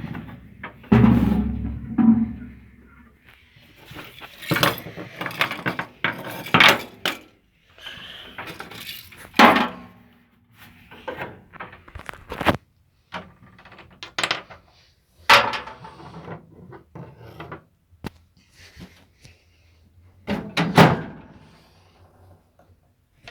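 Music broken up by irregular thuds and knocks.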